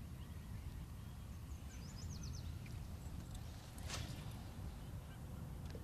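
A short series of faint, high, quickly repeated chirping bird calls over a steady low rumble of wind and open water, with a single sharp knock near the four-second mark.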